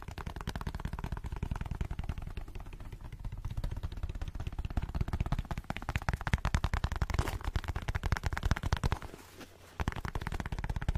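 Very fast, continuous fingertip and nail tapping on a soft black case held right against the microphone, breaking off briefly shortly before the end and then starting again.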